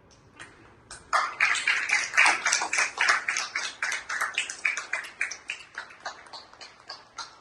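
Small audience clapping, the separate hand claps easy to pick out, starting about a second in, at its loudest early on and thinning out toward the end.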